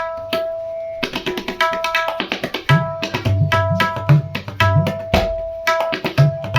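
A pair of tabla played in a fast stream of strokes to test their sound: the right-hand drum (dayan) rings with a clear, steady pitch. A little under halfway in, the left-hand bass drum (bayan) joins with repeated low strokes.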